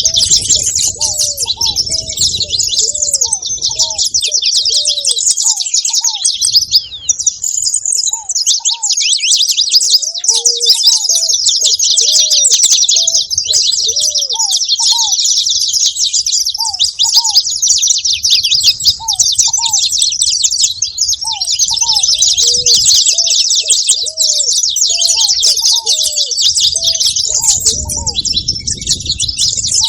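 Saffron finch singing a long, rapid, nearly unbroken run of high chirping notes. A second, lower-pitched bird calls in short repeated notes in clusters underneath.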